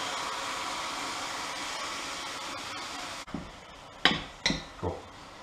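Red wine sizzling steadily as it is poured into a hot casserole pan, deglazing it; the sizzle cuts off about three seconds in. Then come three knocks of a wooden spoon against the pan as the pot is stirred.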